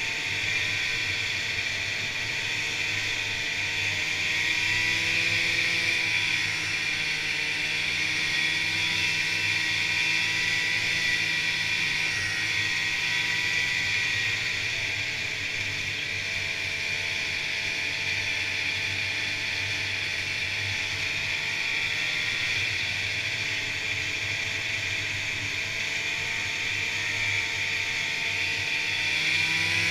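Polaris Indy two-stroke snowmobile running along a trail at a steady cruise, its engine note rising and falling gently with the throttle, over a steady high hiss.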